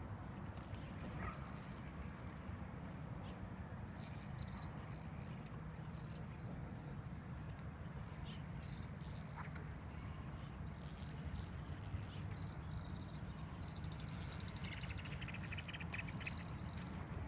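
Faint outdoor ambience: scattered short high chirps of small animals over a steady low rumble, with a quick run of ticks near the end.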